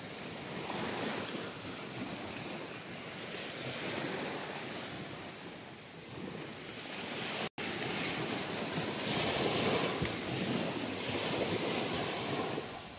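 Surf washing onto a beach, swelling and ebbing, with wind on the microphone. The sound cuts out for an instant about halfway through.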